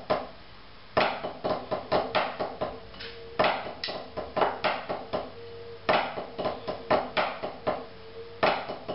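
Wooden drumsticks striking a drum practice pad, playing a short snare rudiment phrase: sixteenth notes in pairs and then alternating, with flams and accents. The phrase of about eight strokes is played four times, about two and a half seconds apart.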